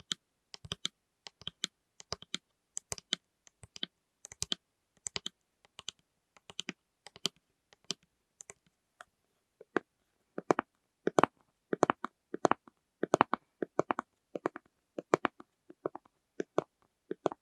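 Fingers tapping on plastic lids: quick, irregular clusters of crisp taps and clicks, getting louder and fuller from about ten seconds in.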